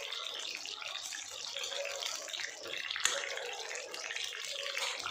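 Whole slit green eggplants sizzling and crackling in hot oil in a steel kadhai, with a single sharp tap about three seconds in. The loud sizzle comes from moisture in rainy-season eggplants, which the cook says makes this sound however well they are washed and dried.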